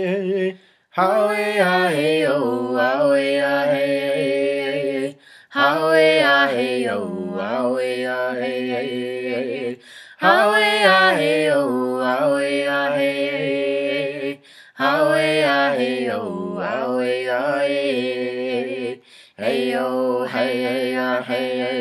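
Unaccompanied chant-style singing: a voice sings vocables in long held phrases of about four seconds each, with a short pause for breath between them.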